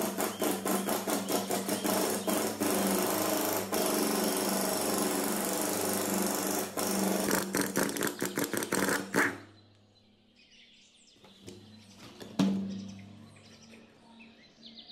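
Impact wrench hammering rapidly on the rusted bolts of a cast electric water pump motor housing, in runs and bursts that stop about nine seconds in. A single loud metallic clank follows a few seconds later as a socket is handled.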